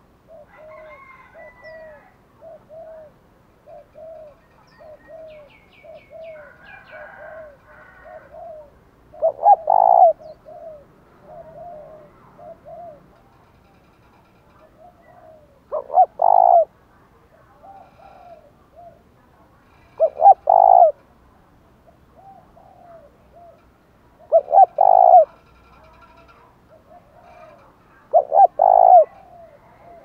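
Spotted dove cooing: a run of soft, quick low coos about two a second, then from about nine seconds in five loud coo phrases spaced about four seconds apart. This is the rapid bowing coo ('thúc gù') used to stir other doves into calling.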